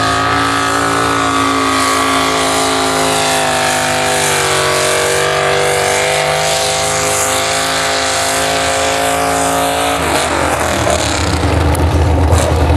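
Pro stock mini truck's engine running at high revs under load on a pull. The pitch sags about four seconds in and climbs again, then the engine note cuts off suddenly about ten seconds in as the throttle comes off, leaving a low rumble.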